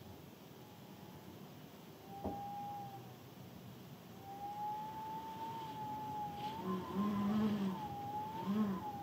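Cats yowling: a long, slightly wavering wail that bends up and down, joined in the second half by lower moaning calls, over a faint hiss of rain.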